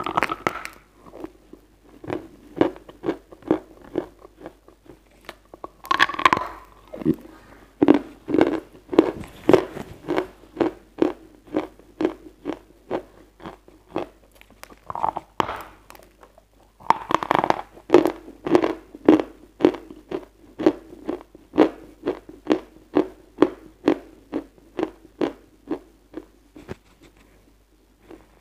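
A lump of edible chalk being bitten and chewed up close: louder bites near the start, about six seconds in and again about seventeen seconds in, each followed by a steady run of crisp chewing crunches, about two a second.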